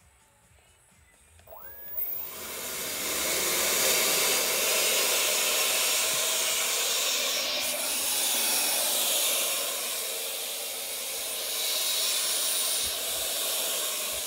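A 50 mm brushless electric ducted fan spooling up with a short rising whine about a second and a half in, then running at speed with a loud, steady rushing hiss of air that swells and dips a little.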